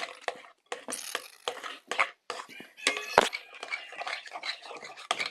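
A utensil stirring slime mixture in a bowl, making rapid irregular clicks and scrapes against the bowl, with one sharper knock about three seconds in.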